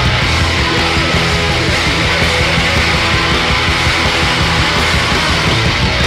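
Loud, heavy math rock played by a full band, dense and steady.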